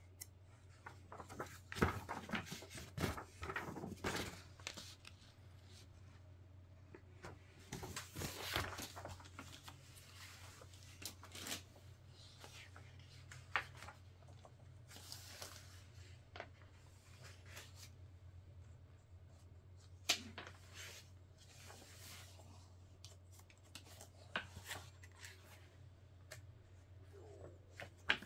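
Packaging being handled: intermittent rustling and crinkling of plastic or paper, with scattered sharp clicks and knocks, over a steady low hum.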